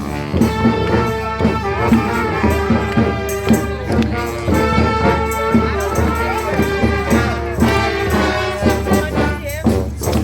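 Brass-and-drum street marching band playing: several horns holding and moving between notes together over a steady drum beat.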